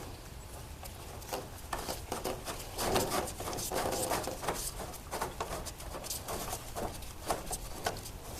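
Irregular clicks, taps and light knocks of metal parts being handled as a garage door hinge and its screws are fitted back on over a new roller, busiest in the middle.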